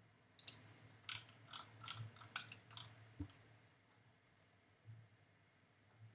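Faint computer mouse clicks: a quick, uneven run of about a dozen clicks in the first three seconds, then a few scattered ones, over a low steady hum.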